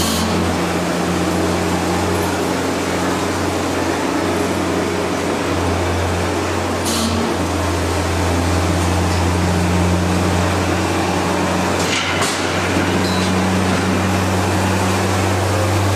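Loader-mounted straw bedding blower running steadily while blowing chopped straw: a loud, constant mechanical drone with a low hum and an even hiss, with a few brief clicks partway through.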